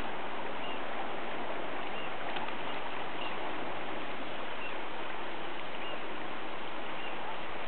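Steady rushing of river water flowing over a shallow riffle.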